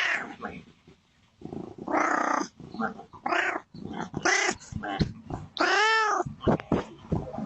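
Domestic cat meowing again and again to be let inside, a run of loud calls that each rise and fall in pitch.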